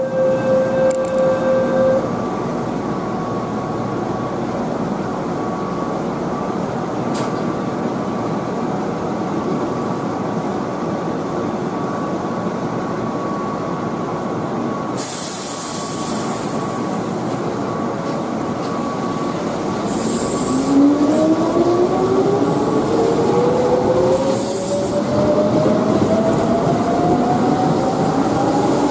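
Keihan 1000-series electric train standing at the platform with a steady running hum. About halfway through there is a short hiss of air, and about two-thirds through it pulls away, its traction motors whining as they rise steadily in pitch.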